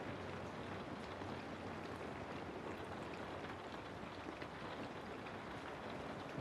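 Steady rain falling on forest foliage: an even hiss with scattered faint drop ticks.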